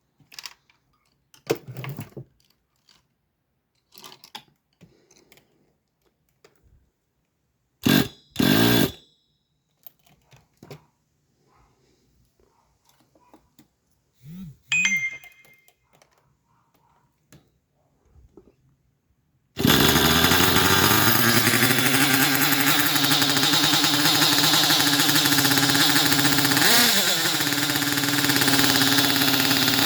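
Scattered clicks and handling knocks with two short, loud bursts, then about two-thirds of the way in the small glow-fuel nitro engine of a Thunder Tiger EK4 RC model catches on 15% nitro fuel. It runs steadily at a high, buzzing idle with a couple of brief throttle blips near the end.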